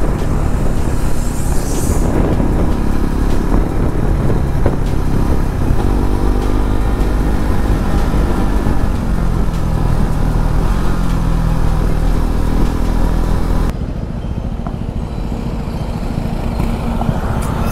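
BMW G 310 RR motorcycle's single-cylinder engine running while riding, its note rising and falling gently, under heavy wind noise on the microphone. About fourteen seconds in the sound changes abruptly and gets quieter.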